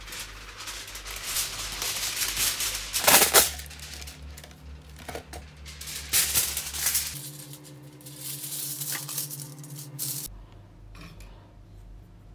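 Heavy-duty aluminium foil pulled off its roll, torn at the box's cutting edge and spread out flat, crinkling and rustling, loudest about three seconds in; the crinkling stops about ten seconds in.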